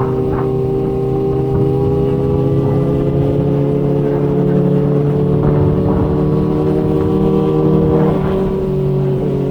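Inline-four sport motorcycle engine running under steady throttle while riding, its pitch creeping slowly upward, heard with rumbling wind and road noise. The tone of the engine shifts slightly about eight seconds in.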